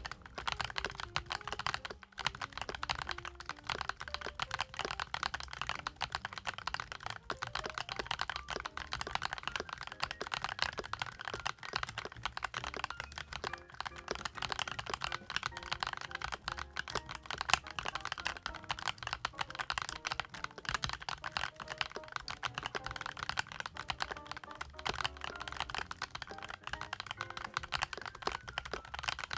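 Continuous fast typing on a CIDOO ABM098 gasket-mount mechanical keyboard with CIDOO Blue-Through linear switches: a dense run of keystroke clacks with no pauses.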